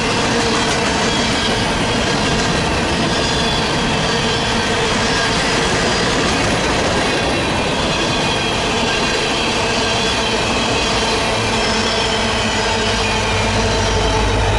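Freight cars of a grain train rolling past, steel wheels on rail making a steady rush with faint wavering squeals of the wheels, and a low rumble building near the end.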